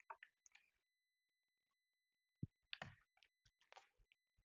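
Near silence with faint handling noises: a soft knock about halfway through, then brief rustling as tape is wrapped around a model aeroplane part. A faint steady high-pitched tone sits underneath.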